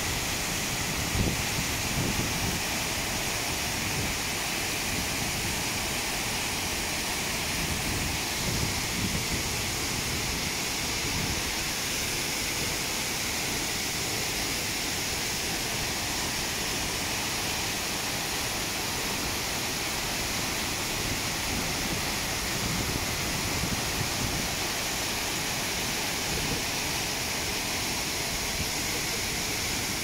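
Steady, continuous rushing of the Wachirathan Waterfall, a large cascade of water pouring down a rock face into a pool.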